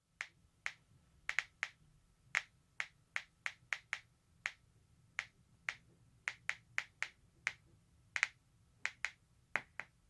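Simulated Geiger counter clicks from an Arduino driving a small speaker: single sharp clicks at random, irregular intervals, about two or three a second, like a counter at low background radiation.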